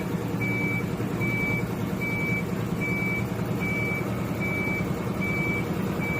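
Pallet stretch-wrapping machine running with a steady low hum, under an electronic warning beeper sounding a high, even beep about every 0.8 seconds.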